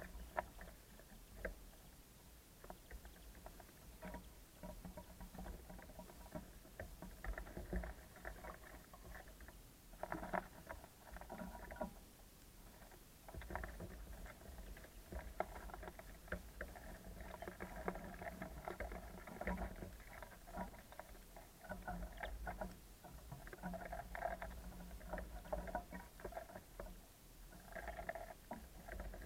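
Small birds pecking and hopping on a wooden bird feeder: many irregular small taps and knocks, over a low rumble.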